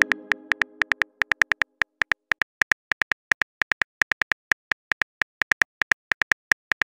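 Simulated phone keyboard clicks tapping out a text message, quick and uneven at several taps a second. The tail of a message chime fades out in the first second or so.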